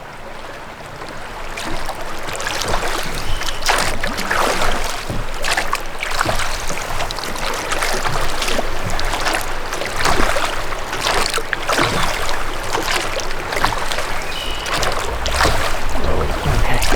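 Water splashing and sloshing around a drift boat as it is rowed in toward the bank, in irregular splashes. Wind rumbles on the microphone near the end.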